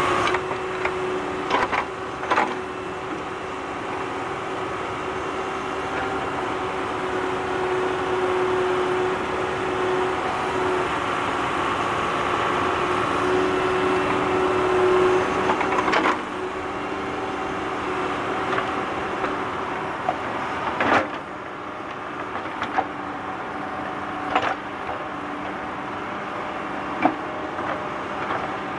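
Tractor engine running steadily while digging, with a held tone that shifts slightly in pitch and a few sharp clanks.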